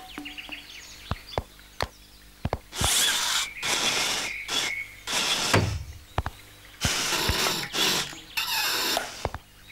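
Cartoon sound effects for a toy remote-control car: its motor whirring in about six short bursts, with sharp clicks and knocks between them, a brief squeal around the middle and a low thud a little after halfway.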